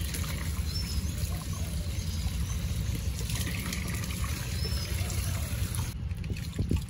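Tap water running from a hose into a plastic bucket, splashing as leafy greens are rinsed and swished in it by hand.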